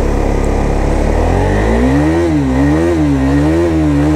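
KTM 390 Duke's single-cylinder engine revving up about a second in, then rising and falling in pitch again and again as the throttle is opened and eased off under load.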